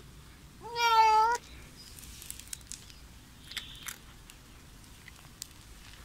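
Bengal kitten giving one loud meow under a second long, rising in pitch at the onset then held steady, about a second in, followed by a few faint clicks.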